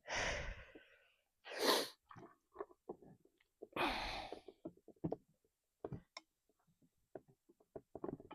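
A man exhaling hard three times, the second the loudest, between light clicks and taps of parts being handled.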